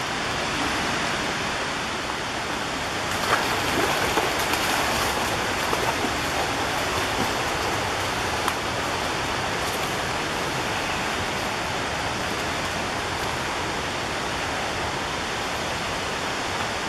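Steady rush of the Raquette River at Buttermilk Falls, an even, unbroken water noise, with a few light knocks about three to five seconds in.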